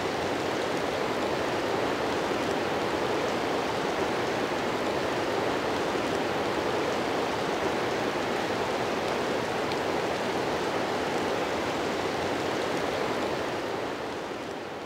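Swollen river water gushing in a steady rush, fading away near the end.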